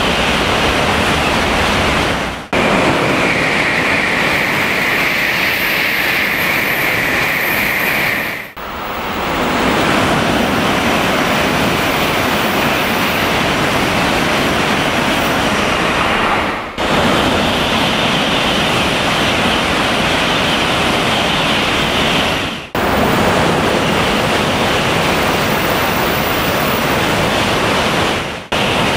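N700 series Shinkansen trains passing at speed: a loud, steady rush of air and wheel noise on the rails. It comes as several clips joined with brief breaks, and in one of them a steady higher hiss sits on top for about six seconds.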